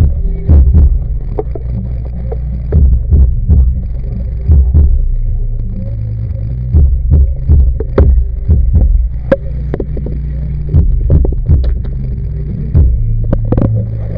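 Underwater audio picked up by a Kodak PlaySport camera: a steady, muffled low rumble with irregular knocks and clicks, some in quick clusters.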